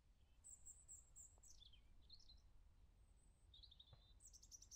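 Faint birds chirping: a few high chirps and short falling whistles, with a quicker run of chirps near the end, over a faint low rumble.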